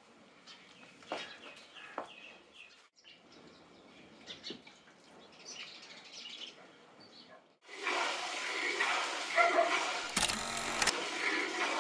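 Faint bird chirps, then from about eight seconds in, milk squirting in streams into a steel bucket as a water buffalo is milked by hand. A brief loud rumble cuts across it about ten seconds in.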